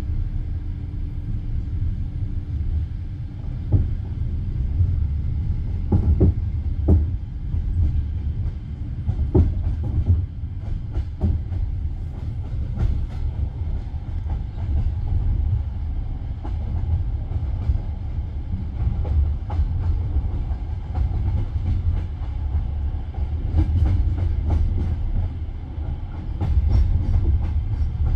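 Passenger railway carriage rolling along the track: a steady low rumble from the wheels on the rails, with irregular sharp clacks as the wheels cross rail joints, clustered in the first half and again near the end.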